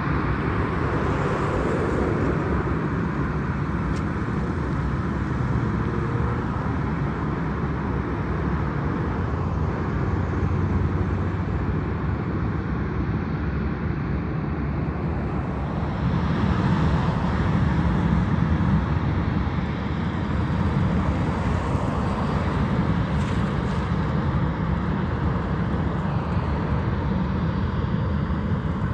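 Boeing 737 jet engines at taxi power, a steady rumble and rush that swells slightly about halfway through as the airliner rolls past.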